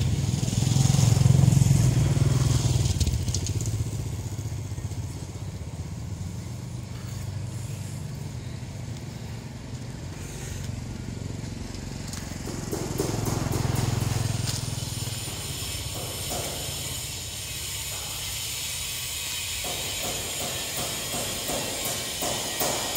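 Motor vehicles passing. A low engine rumble swells and fades in the first few seconds and again about halfway through, with light tapping in the later part.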